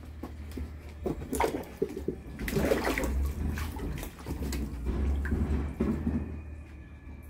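Geese dabbling and splashing their bills in a plastic tub of water, irregular sloshes and splashes, busiest in the middle, over a steady low hum.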